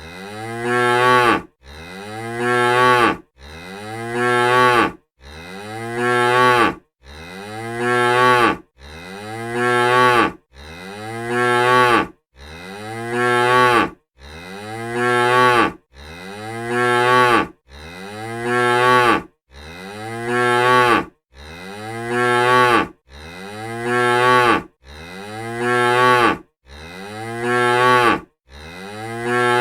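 A cow's moo looped over and over: the same call repeats about every second and three quarters, each one swelling in loudness and then cutting off abruptly before the next begins.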